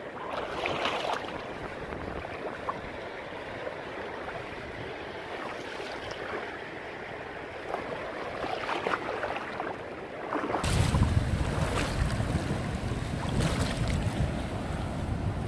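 Shallow seawater splashing and sloshing as people wade through it, with surf washing steadily behind. About a second in there is a burst of splashing, and about two-thirds of the way through a low rumble of wind on the microphone sets in and stays.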